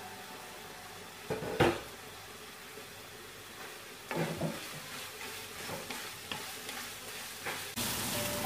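Ivy gourd frying with a light sizzle in a nonstick pan. About a second and a half in there are two sharp knocks, and from about four seconds a wooden spatula stirs and scrapes through the vegetables in repeated strokes.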